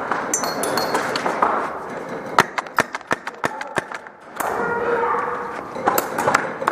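Airsoft guns firing in an indoor arena: irregular sharp snaps of shots and BB hits, a cluster of them in the middle and a few more near the end, over a haze of distant voices.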